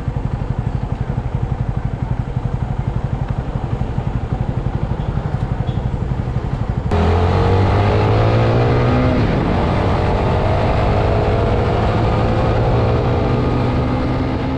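Motorcycle engine running with a fast, even pulse. About seven seconds in the sound changes abruptly and gets louder, with clearer engine tones that drop in pitch and then hold steady.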